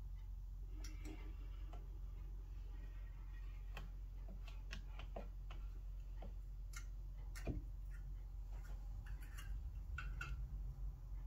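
Scattered light clicks and taps at an uneven pace as small plastic slime containers are handled and set down beside a metal muffin tin, with one firmer knock past the middle. A steady low electrical hum runs underneath.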